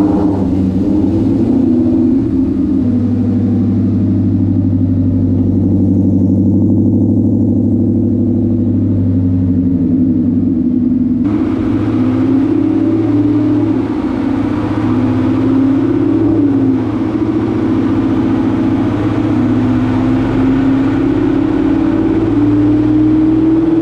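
Car engine idling steadily just after starting, left running to warm up before dyno pulls. About 11 seconds in, a steady rushing noise joins the engine sound.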